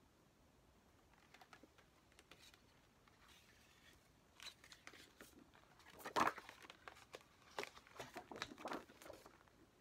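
Paper and plastic album contents being handled, rustling and crinkling. It starts with a few faint clicks, then a scattered run of sharp rustles begins about four seconds in, loudest about six seconds in.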